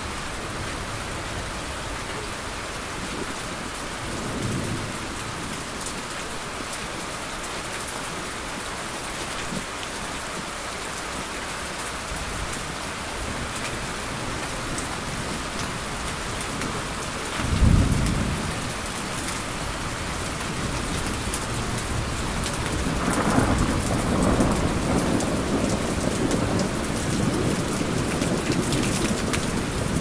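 Steady heavy rain with thunder. A faint rumble comes about four seconds in, a loud clap about halfway through, and rolling thunder builds toward the end.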